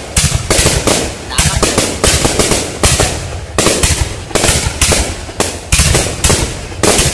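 Aerial fireworks display: shells bursting in a rapid, uneven string of loud bangs and crackles, about two or three a second.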